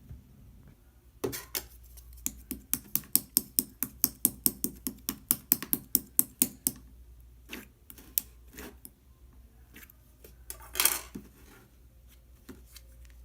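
Clear slime being pressed and squished, giving sharp clicking pops: a quick even run of about four or five clicks a second, then scattered clicks and a louder crackling squish about eleven seconds in.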